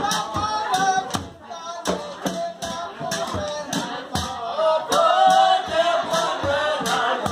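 Dhepa Dhuliya folk ensemble of Assam: men singing together over a steady beat of dhol drum strokes, about three a second.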